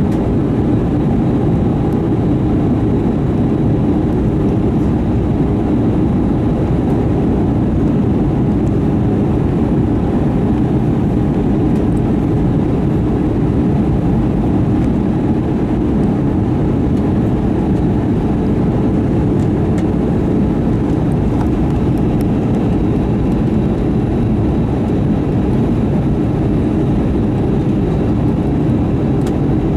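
Steady, low-pitched cabin noise of an Airbus A320-232 on approach, heard from a window seat beside the wing: its IAE V2500 turbofan engines running with the rush of air past the fuselage, unchanging throughout.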